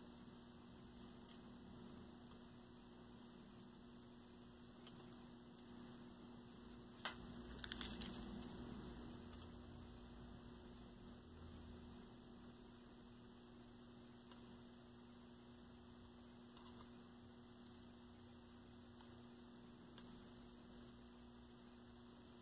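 Near silence with a faint steady electrical hum. One small click about seven seconds in, then a brief crackle.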